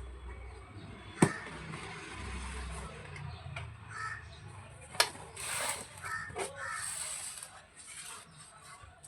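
Slate pencils and their packet being handled: a steady rustle with two sharp clacks, about a second in and about five seconds in. Crows caw several times in the background.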